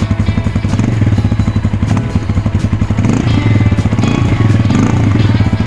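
Veloci Xeverus Pro XR 250R dual-sport motorcycle engine idling, heard close at the exhaust muffler as a steady rapid pulsing, a little louder from about three seconds in. The engine is still a little cold.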